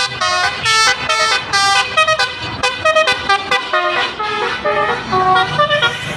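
A bus's basuri musical horn playing a fast tune of short pitched notes, about four or five a second.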